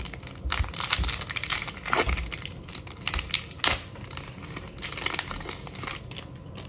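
Foil wrapper of an Upper Deck hockey card pack crinkling and tearing as it is handled and ripped open: a run of irregular crackles that thins out near the end.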